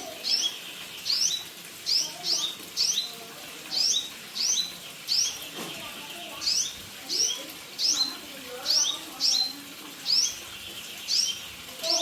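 Songbird chirping: short, sharp, high notes, mostly in quick pairs, repeated steadily about once or twice a second.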